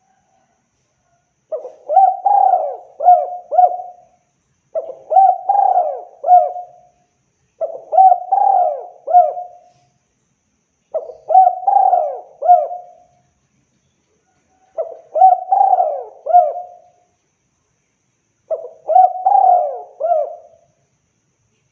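Spotted dove (tekukur) cooing: six phrases of about four coos each, a couple of seconds apart.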